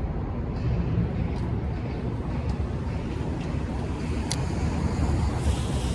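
Steady low rumble of city road traffic, with a sharp click about four seconds in and a louder hiss near the end.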